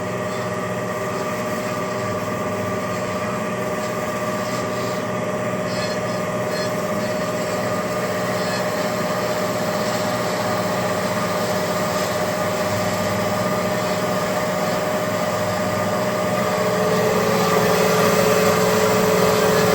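Lian Feng LF-12A automatic band saw running, its 2 hp three-phase motor and blade going steadily as the head lowers to cut. About seventeen seconds in the sound gets louder and its tone drops slightly in pitch.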